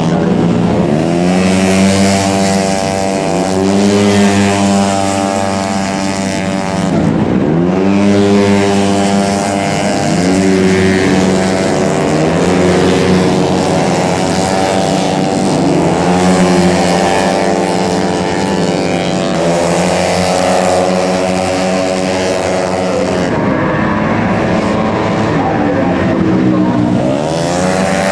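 Several tuned 130 cc racing automatic scooters running at high revs, their engine pitch swooping up and settling again every few seconds as machines go by one after another.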